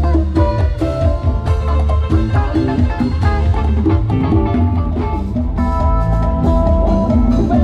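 Live band music played loud through a sound truck's PA system: keyboard lines over drums and a heavy, booming bass.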